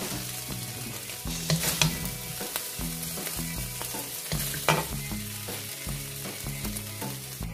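Wooden spatula scraping and scooping stir-fried green beans and minced pork out of a hot wok, the food still sizzling. Sharper scrapes come about a second and a half in and again near five seconds.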